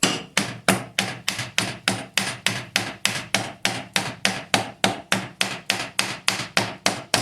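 Small plastic mallet striking an Indiel AVI 128 alternator's housing in a steady run of about four blows a second, driving apart a housing that is stuck fast.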